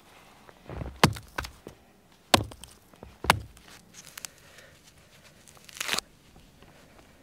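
Sharp cracks and thuds as a frozen rabbit carcass is broken apart on a snowy log: three loud ones about a second apart, each with smaller knocks around it. Near the end comes a short rip as frozen skin and fur are torn away.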